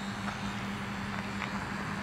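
HobbyZone Super Cub S RC airplane in flight overhead, its electric motor and propeller giving a steady, even buzz.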